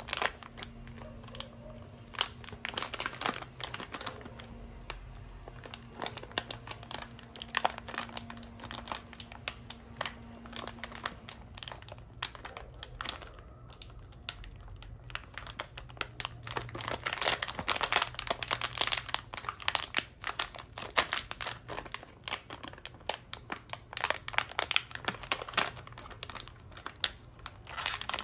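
Plastic Sadia Salamitos snack bag crinkling and crackling as fingers twist and pull at it. The wrapper is hard to tear open. The crackles are irregular and busiest in the second half.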